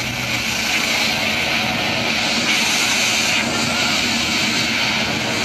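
Steady rushing wind of a tandem skydive in freefall, played back over a hall's loudspeakers.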